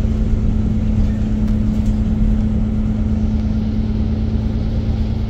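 Inside a moving city bus: the engine running with a steady hum over a low road rumble.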